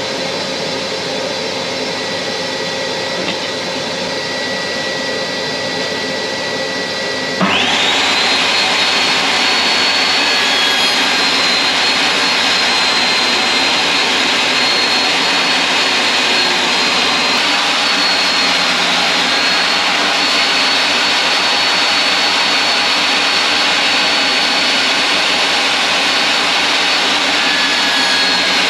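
Table saw fitted with a 6mm grooving blade switching on about seven seconds in, spinning up within half a second to a louder steady running noise with a high whine. Before that, a quieter steady machine noise.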